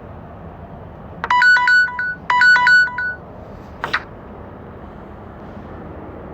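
Phone alert tone: the same short phrase of a few bright electronic notes plays twice, about a second each, followed by a short swish about four seconds in.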